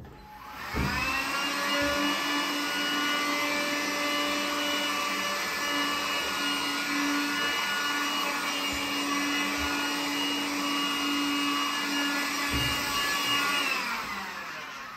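Beldray cordless window vac's motor starting up and spinning up about a second in, then running with a steady whine while it sucks water off a wet glass bath screen. It winds down near the end as it is switched off.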